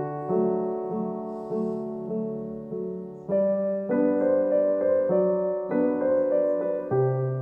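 Background piano music: gentle chords struck about every half second to a second.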